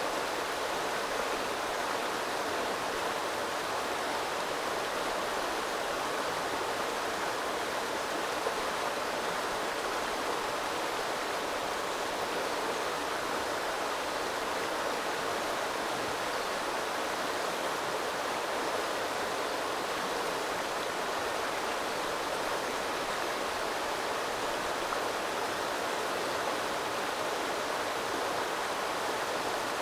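Small river flowing steadily, its water rushing and babbling without a break.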